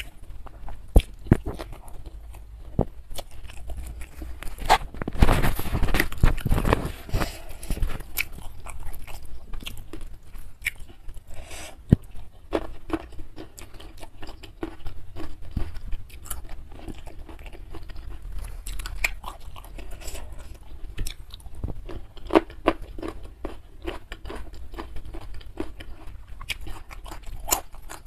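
Close-miked mouth sounds of a person eating rice and fish by hand: steady chewing with crunches and wet clicks, loudest and densest about five to seven seconds in.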